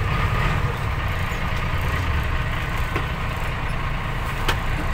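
Bus engine idling, a steady low rumble, with a single sharp click about four and a half seconds in.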